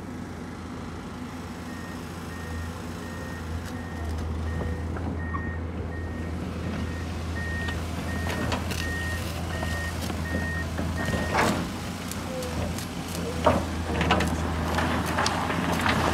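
Tracked excavator's diesel engine running steadily while its travel alarm beeps about one and a half times a second. After the beeping stops, about eleven seconds in, the steel bucket knocks and scrapes against frozen rocks several times.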